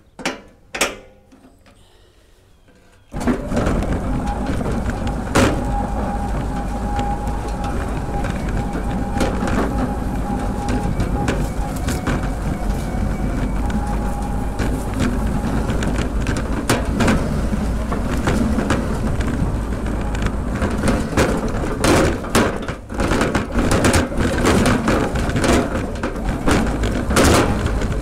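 Homemade electric lawn tractor setting off and driving over a rough yard: a couple of clicks, then about three seconds in a loud, steady rumble and rattle of the machine begins, with a faint steady whine for a while and frequent knocks and clatters as it bumps along.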